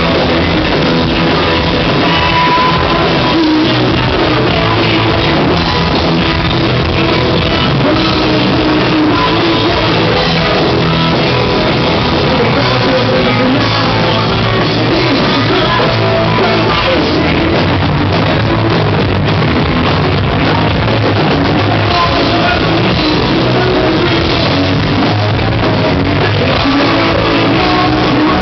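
Rock band performing live: loud, continuous rock music with guitar, drums and singing.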